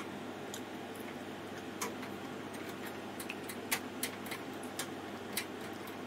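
Hand screwdriver turning a motherboard screw into its standoff in a metal PC case: a dozen or so small, sharp, irregular clicks and ticks of the tip and screw against metal, over a steady low hiss.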